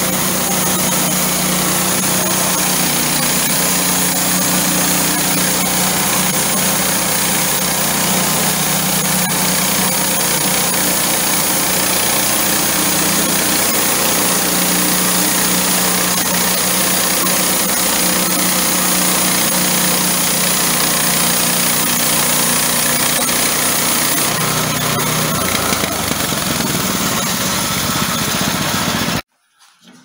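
Range Road RR5022a portable bandsaw mill running steadily, its engine driving the band blade through a log lengthwise. The sound shifts slightly near the end and then cuts off abruptly.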